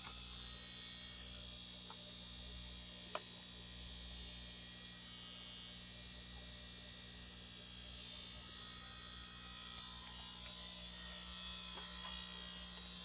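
A steady low electrical hum from running equipment, with a faint click about three seconds in.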